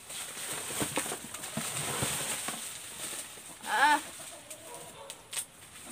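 A chicken gives one short call about four seconds in, over scattered light knocks and rustling from hands working among dried corn ears, a basket and a sack.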